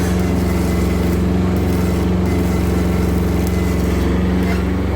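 Shindaiwa 300-amp engine-driven welder generator running at a steady speed.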